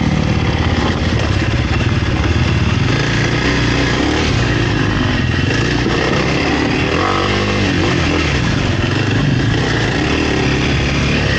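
Kawasaki KLX300R dirt bike's single-cylinder four-stroke engine under way on a trail, its engine speed rising and falling as the rider works the throttle.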